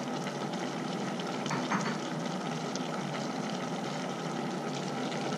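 A pot of curry bubbling on an induction cooker: a steady seething hiss with small crackles.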